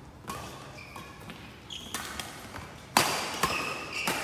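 Badminton doubles rally: a series of sharp racket hits on the shuttlecock, roughly one a second, the loudest about three seconds in.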